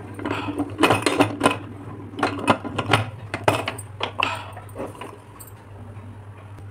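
Aluminium pressure cooker lid clinking and scraping against the pot's rim as it is fitted and turned to lock: a quick series of sharp metallic knocks over the first four seconds or so, then quieter.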